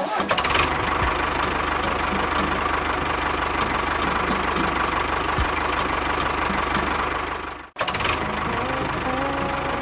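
A small motor running steadily with a fast mechanical chatter; the sound cuts out abruptly about three-quarters through and starts again straight away.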